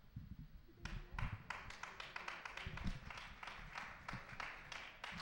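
Hand clapping in a steady rhythm, starting about a second in.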